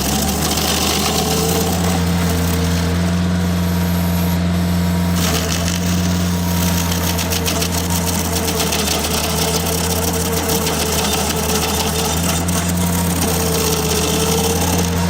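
Tractor engine running steadily at working speed, driving a Woods TSG50 stump grinder, with a rough, gritty clatter over the engine note.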